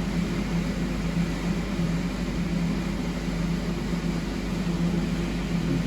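A steady mechanical hum: a constant low drone under an even hiss, with no knocks or other distinct events.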